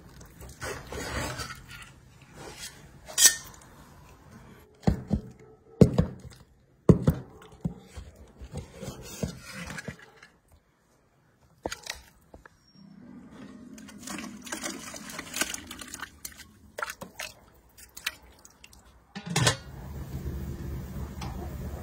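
Clinks and knocks of cookware and utensils, a series of sharp, irregularly spaced strikes with a brief lull partway through.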